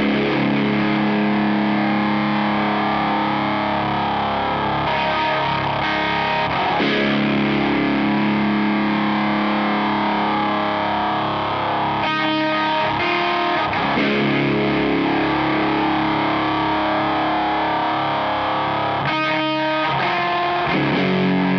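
Electric guitar through a Catalinbread Carbide distortion pedal, an HM2-style 'chainsaw' distortion set with its knobs in the middle, playing slow, simple chords that are held and left to ring. The tone is thick and nasty, with a metallic edge as the notes ring out, and the chords change a handful of times.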